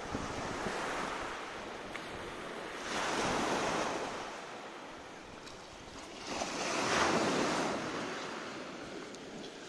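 Surf breaking and washing up a pebble beach, the rush of water swelling twice: about three seconds in and again about six and a half seconds in.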